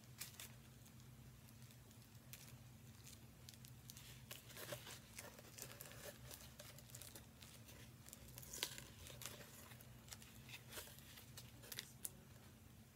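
Faint crinkling and tearing of a small paper packet being handled and picked open by hand, in scattered short rustles with a louder spell about halfway through. A steady low hum runs underneath.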